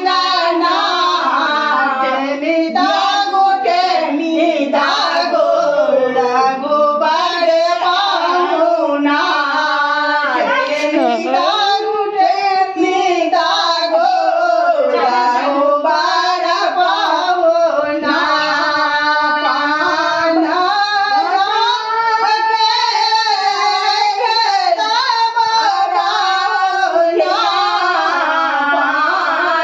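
Several women singing a traditional ritual song together.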